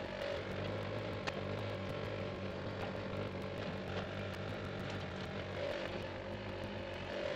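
Mini-excavator's diesel engine running steadily while the machine works, with one sharp knock about a second in.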